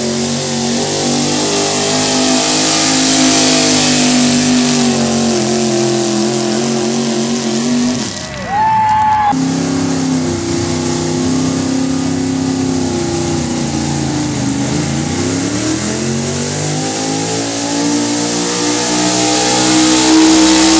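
Gasoline 4x4 pickup truck's engine running hard at full throttle while pulling a weight-transfer sled. The engine note breaks off briefly about eight seconds in, and near the middle its revs sag and climb back.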